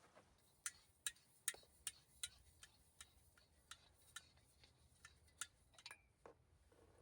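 A series of short sharp clicks or ticks, about two to three a second, fairly even at first and then more irregular.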